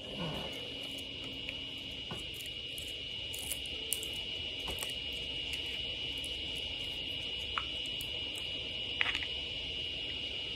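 A few faint clicks and rubs as a plastic cap is screwed back onto a hot sauce bottle, over a steady high-pitched whine in a quiet room.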